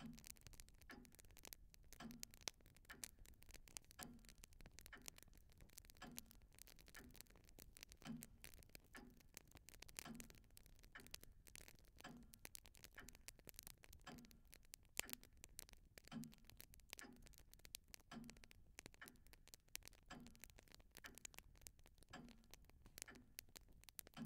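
Faint, even ticking about once a second, with scattered faint crackles between the ticks.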